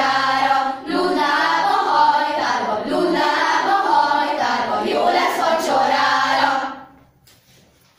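Youth choir of mostly girls singing together, with a short breath break about a second in. The singing ends about seven seconds in, leaving only faint room sound.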